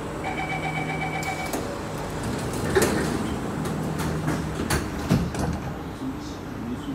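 SMRT C151C train's door-closing warning: rapid beeping for about a second and a half, then the sliding passenger doors closing, with knocks and a final thump about five seconds in as they shut.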